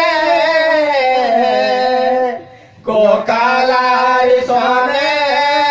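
Folk song sung unaccompanied into handheld microphones, in long held notes. The melody slides downward in the first second or so, stops briefly a little over two seconds in, then comes back in on sustained notes.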